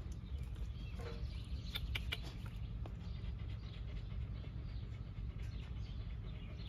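Outdoor background: a steady low rumble with a few short, faint high chirps about two seconds in.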